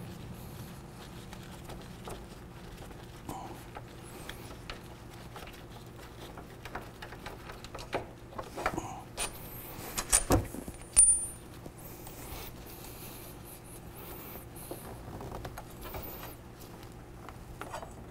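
Metal hand tools clinking and scraping on a motorcycle's front brake caliper as it is unbolted and taken off the fork. Scattered small clicks, with a cluster of louder metallic knocks and a brief high squeak around the middle.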